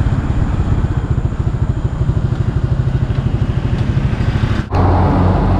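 Small motorcycle engine running while riding, a fast, even exhaust pulse. It breaks off for an instant near the end and carries straight on with more hiss.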